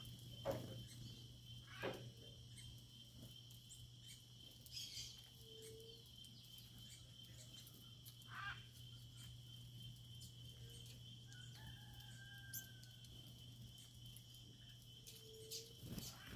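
Faint rural dawn ambience: a steady high insect drone with scattered short bird chirps and calls over it, and a low steady hum underneath.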